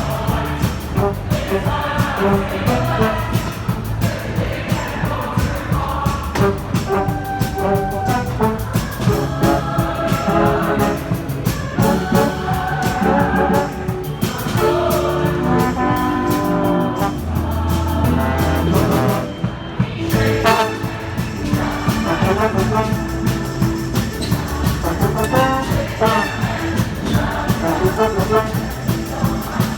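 A band playing with a brass section of trumpets and trombones, the music running without a break.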